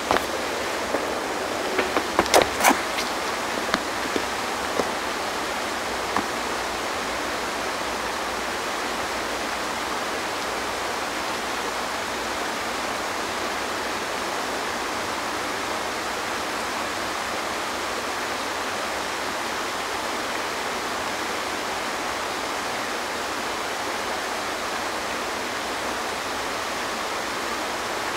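Steady, even hiss with a few light clicks and taps in the first six seconds.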